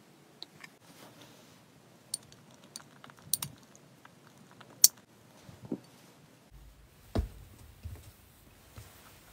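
A spoon clinking and tapping against a glass bowl of freeze-dried treats soaked in milk: scattered light clicks, the sharpest a little under five seconds in. There is a duller knock about seven seconds in.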